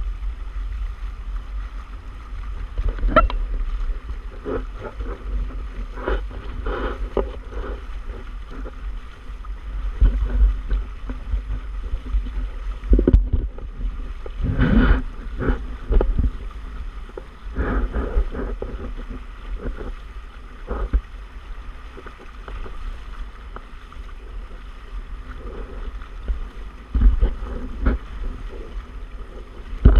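Hull and outriggers of a Hobie Tandem Island sailing kayak cutting through choppy water under sail: a steady rush of wind on the microphone with irregular splashes and slaps of water against the hulls.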